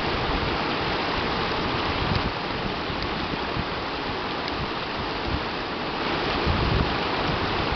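Shallow creek rushing over rocks, a steady hiss of flowing water.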